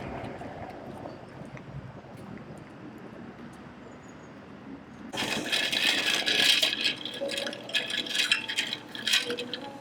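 Close crinkling and rattling, like something being handled and rustled, starting suddenly about five seconds in and lasting about four seconds, after a quiet stretch.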